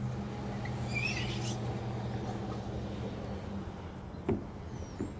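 A child's sneakers on a plastic playground slide: a short high squeak about a second in and a sharp knock about four seconds in. A steady low hum, like a distant engine, runs underneath and fades out past halfway.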